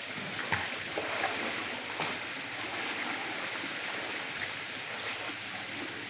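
Steady rush of waterfall water, with a few light splashes in the first couple of seconds.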